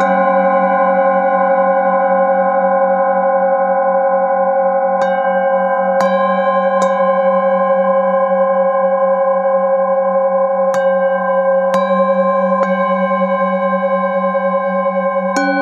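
Metal singing bowls ringing in many steady, overlapping tones. The lowest tone pulses evenly as a wooden mallet is worked around the rim of the held bowl, and a handful of soft taps bring in fresh ringing tones along the way.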